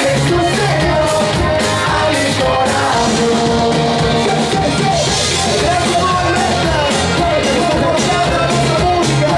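Live rock band playing: distorted electric guitar, bass guitar and drums with sung vocals, recorded from the audience.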